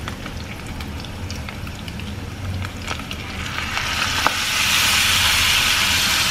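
Diced bacon frying in a pan with small pops and clicks. The sizzle grows much louder about four seconds in, as kimchi goes into the hot pan and is stirred with wooden chopsticks.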